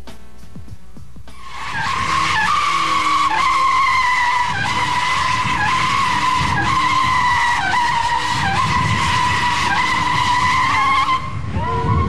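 Music for about the first second, then car tyres squealing in one long continuous screech over a low rumble, wavering and dipping about once a second, typical of a car spinning its wheels or skidding. It stops shortly before the end.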